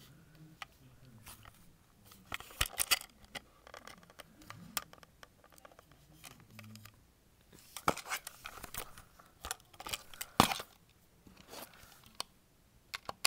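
Plastic clicks and handling noises from a remote-control toy and its remote being fiddled with, a scatter of short clicks and rustles with one sharp click about ten seconds in.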